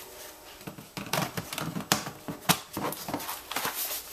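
Hard plastic clicks and knocks as a laptop battery is slid into its bay and latched, and the laptop is handled and turned over.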